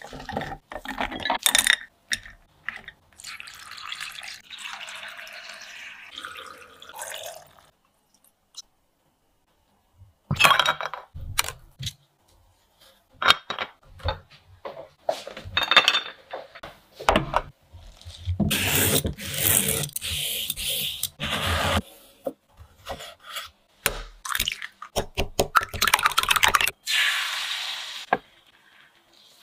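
Kitchen food-prep sounds from packing Chinese-style pickles (pao cai) into glass jars: cut vegetables and chillies rustling and being pushed in by hand, glass clinks and knocks, and longer stretches of liquid splashing and pouring. There is a short silence about eight seconds in.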